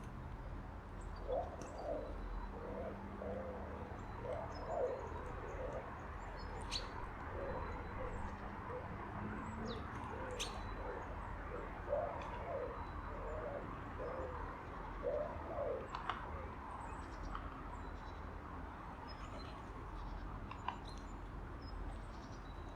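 A pigeon cooing in a long run of repeated low phrases that stops about two-thirds of the way through, with thin, high chirps from tits scattered around it.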